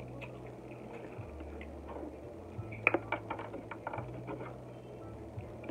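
Wet chewing and lip-smacking from someone eating crab meat, with a cluster of sharp clicks about three seconds in as the crab shell is picked apart.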